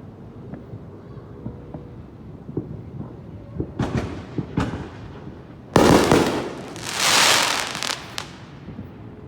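Fireworks going off over a low background rumble: scattered faint pops, then two sharp cracks about four seconds in, a loud bang near six seconds, and a second or so of dense crackling, ending with one more crack.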